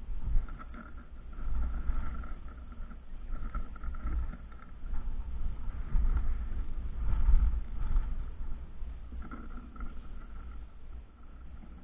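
Wind buffeting the microphone: a gusting low rumble that swells and eases, with a faint high tone coming and going.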